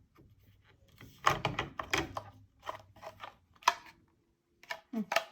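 Plastic dishwasher parts clicking and knocking as they are handled and pushed into place, a run of irregular sharp clicks.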